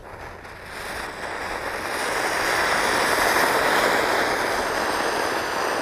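Ganga Jamuna ground fountain firecracker (anar) spraying sparks with a steady rushing hiss that builds over the first two seconds and then holds.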